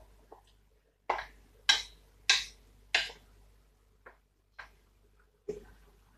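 A kitchen utensil knocking sharply against cookware, about seven times: four strong knocks roughly every half second, then three weaker ones further apart, typical of scraping and tapping peanut butter off a spoon into the stew pot.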